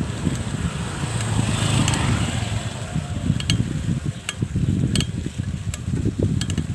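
Bicycle in motion: a constant low rumble with sharp clicks at irregular intervals, and a hiss that swells and fades about two seconds in.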